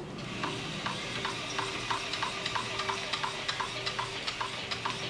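SealBoss P2002 urethane injection pump running, forcing polyurethane resin through a packer into a crack in the pool wall: a steady hum under a hiss, with even clicks at about three a second.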